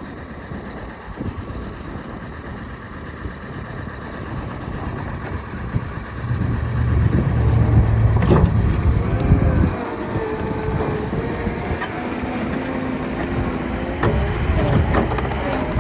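Cat 299D2 skid steer loader's diesel engine running, swelling to a heavy low rumble about six seconds in, then settling back after a few seconds to steady running with a pitched whine that wavers.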